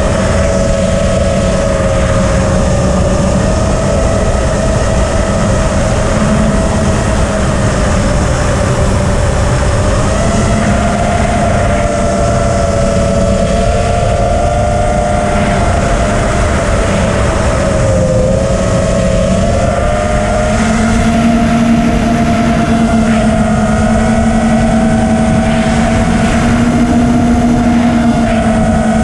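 Brushless motors and propellers of a 6-inch FPV quadcopter whining steadily as heard from its onboard camera, the pitch drifting up and down with the throttle, over rushing wind noise.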